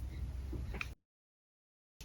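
Alcohol marker nib stroking across paper over a low hum, with one short, sharper stroke just before the sound cuts off abruptly to dead silence halfway through.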